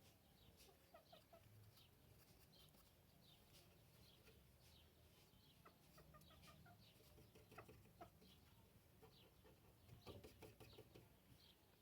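Near silence, with faint scattered clicks and short clucking, bird-like calls.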